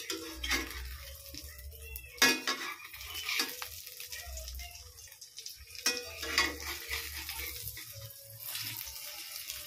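Egg frying in oil in a metal wok, sizzling, while a metal spatula scrapes and knocks against the pan in irregular strokes, the sharpest knock about two seconds in.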